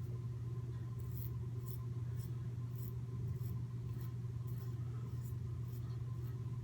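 Short scraping strokes of a Merkur 34C safety razor cutting through coarse lathered stubble, about two a second, over a steady low hum.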